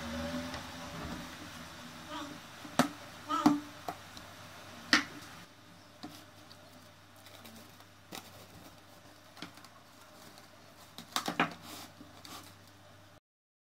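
Handling noises from a plastic mixing bowl of dough: a few sharp knocks and scrapes of a spatula against the bowl, then a quick cluster of crackles near the end as plastic cling film is stretched over it. The sound cuts off suddenly just before the end.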